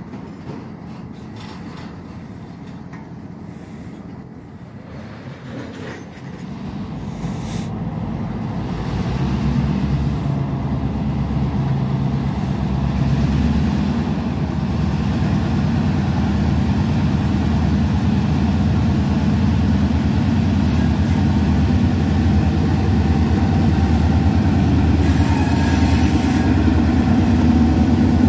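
Freight train of loaded tank cars rolling slowly past, with scattered clicks from the wheels on the rail joints. From about six seconds in, a Norfolk Southern EMD GP38-2 diesel locomotive's engine grows louder as it approaches, and its steady low drone dominates to the end.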